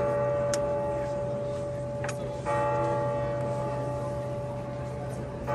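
A large church bell tolling slowly, one stroke about every three seconds, each stroke ringing on until the next.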